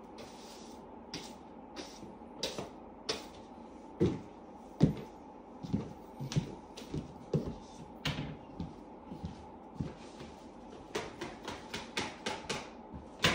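Broom sweeping a floor in short scratchy strokes, then footsteps and scattered knocks and clicks as the broom and a plastic dustpan are carried and handled.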